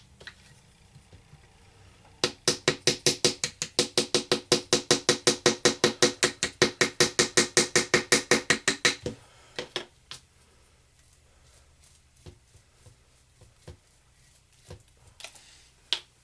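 A small hammer tapping rapidly on a chisel driven into a treasure-dig block, about six ringing taps a second for some seven seconds, then a few scattered single taps.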